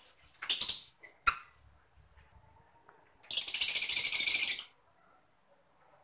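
Lovebirds calling: two sharp, shrill chirps in the first second and a half, then a rapid, pulsing chatter lasting about a second and a half in the middle.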